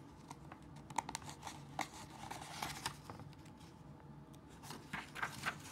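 Paper pages of a picture book being handled and turned: crinkling rustles with sharp little clicks, in two spells, about a second in and again near the end.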